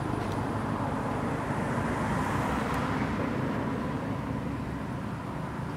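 Low, steady rumble of a distant engine, slowly fading.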